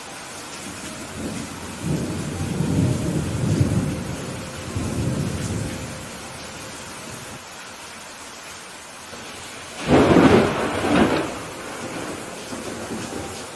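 Steady rain with thunder: a low rolling rumble swells and fades in the first half, then a sharp, loud thunderclap breaks about ten seconds in and rumbles off.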